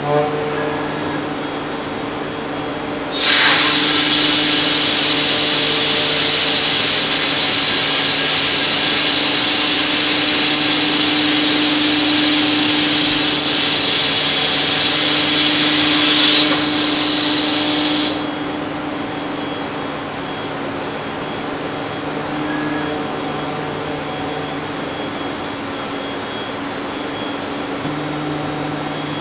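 Industrial robot arm with a cutting spindle carving a foam block: a steady motor hum throughout, with a loud high hiss from about three seconds in until about eighteen seconds, then back to the hum alone.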